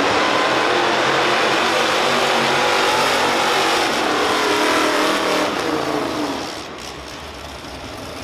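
Tractor engine running loud with a wavering pitch, then easing off about six seconds in.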